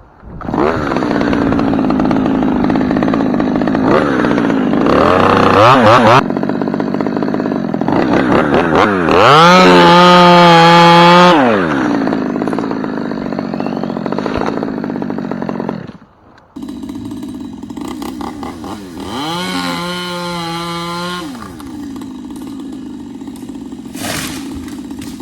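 Chainsaw running and cutting in the tree, revved twice to full throttle with a rising whine that holds and then falls back to a lower running pitch; the sound breaks off briefly about two-thirds of the way through.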